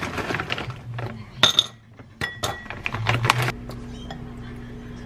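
Frozen broccoli florets poured from a plastic bag into a ceramic bowl of water: the bag rustles, and hard frozen pieces clink against the bowl, one sharp ringing clink about a second and a half in followed by several more. A steady low hum sets in about three and a half seconds in.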